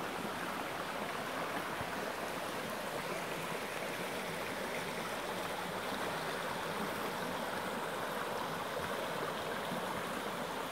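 Shallow rocky creek flowing over stones and small riffles: a steady rush of water that does not change.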